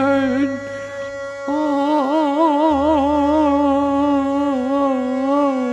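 Harmonica playing long held notes with a wavering vibrato over strummed acoustic guitars and an electric bass line.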